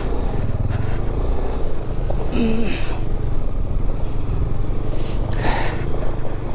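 390cc single-cylinder motorcycle engine running at low speed as the bike labours over loose, unstable off-road ground. A short vocal sound comes about two and a half seconds in.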